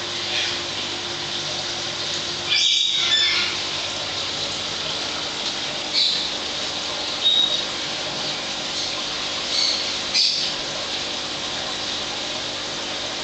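Steady rushing water from an aquarium's pump and filter, with a faint hum. About five short, high-pitched chirps break in over it at intervals.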